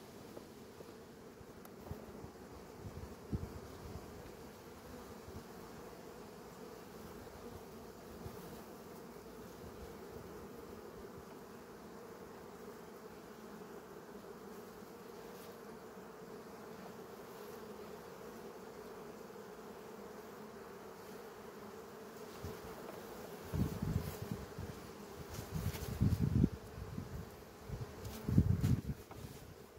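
A honeybee colony in an opened hive, buzzing steadily as one continuous hum of many bees. Near the end come several loud thumps.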